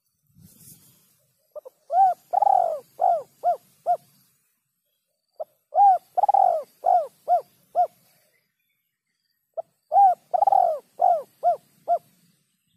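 Spotted dove (terkukur) cooing: three phrases about four seconds apart, each a brief note followed by a long coo and four or five shorter coos.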